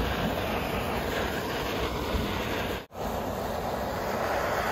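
Handheld gas torch burning with a steady hiss as its flame is played over carved wood to scorch it. The sound breaks off for an instant about three seconds in, then carries on.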